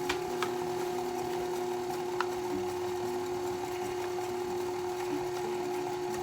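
Electric mixer running steadily on low speed, mixing muffin batter, with a few light clicks about two seconds in and near the start.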